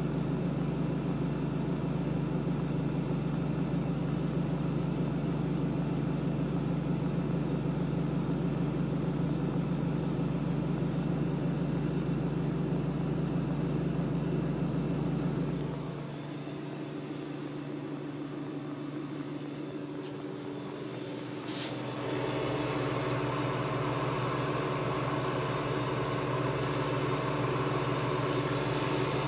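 Speedaire refrigerated compressed air dryer running with a steady electric hum. The hum drops away about 16 seconds in and comes back louder around 22 seconds, just after a short click.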